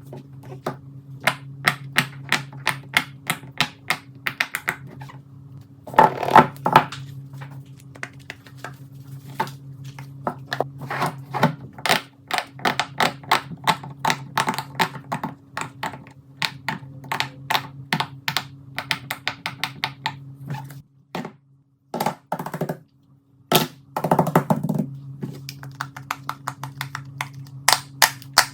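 Fidget toys, mostly silicone pop-its, being pressed and handled: a long irregular run of sharp clicks and soft pops, with two thicker flurries of popping, over a steady low hum that cuts out briefly near the end.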